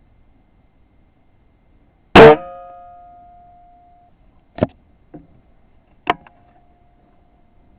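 A .22 Weihrauch HW97K spring-piston air rifle firing once, about two seconds in: a sharp crack followed by the spring's ringing twang fading over about two seconds. A few seconds later come two sharp metallic clicks and a softer one, the last setting off a brief ringing again.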